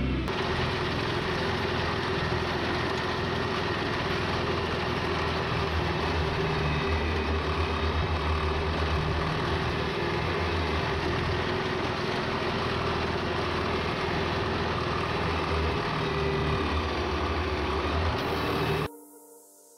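Tractor engine running steadily while pulling a Pöttinger Europrofi forage loader wagon, with the wagon's pickup and rotor working as it gathers cut grass for silage. The sound cuts off abruptly near the end.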